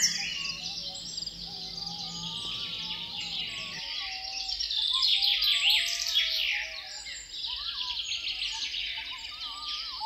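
Dense chorus of songbirds chirping, trilling and whistling. A faint low hum underneath cuts off abruptly about four seconds in.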